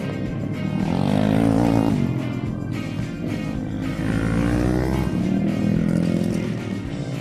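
Motorcycle engines revving up and easing off as bikes ride a dirt flat-track oval, mixed with background music. The engine pitch rises and falls twice, about a second in and again around five seconds in.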